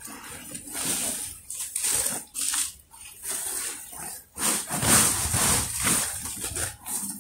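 A woven plastic feed sack being shaken out, its rustling mixed with cut leaves and greens tumbling onto a pile, in irregular bursts that are loudest about halfway through. Native pigs feed at the pile.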